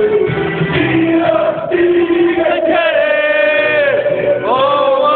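A choir singing slow, long held notes. One note falls away about four seconds in and the voices move onto a new one.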